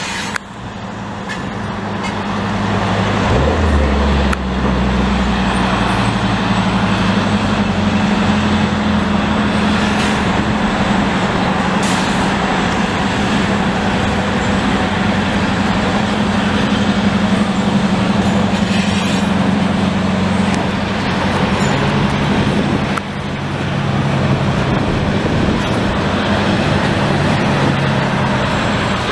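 Diesel switcher locomotives running past with a train of container cars: a steady engine drone that grows louder over the first few seconds, over a broad rumbling noise.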